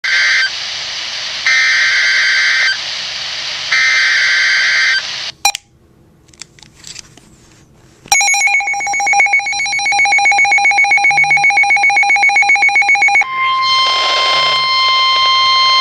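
Emergency Alert System SAME header: three short bursts of shrill, buzzing data tones. After a click and about three seconds of quiet comes the two-tone EAS attention signal for about five seconds, and then a single steady alert tone near the end.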